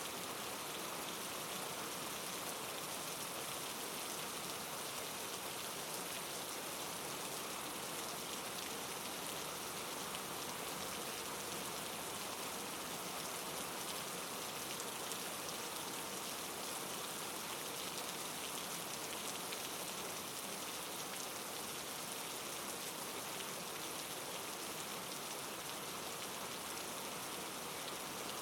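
Steady rain falling, a constant even hiss of many drops on a surface, with no thunder.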